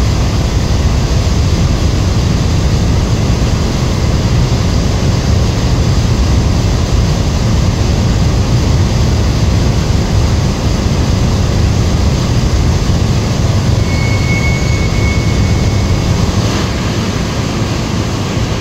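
Turbulent water churning and rushing steadily in a concrete pit, a loud deep continuous rush. A faint high whistle sounds briefly about fourteen seconds in, and the rush eases slightly near the end.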